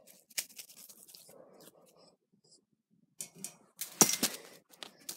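Plastic rods and joints of a collapsible expanding toy ball clicking and rattling as it is handled, with a louder clatter about four seconds in.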